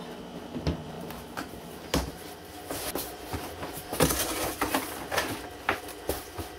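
A large cardboard shipping box being opened by hand: a series of cardboard knocks and thumps as the flaps are pulled back, with scraping and rustling between them, the loudest about four seconds in.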